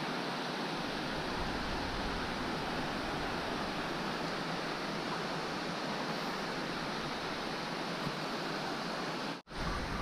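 Steady rushing of river water pouring over a weir, cutting out for a split second near the end.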